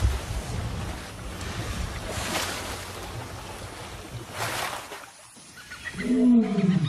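Asian elephants wading in shallow water: splashing and sloshing in swells about every two seconds over a low rumble. Near the end a short, loud pitched call rises and falls.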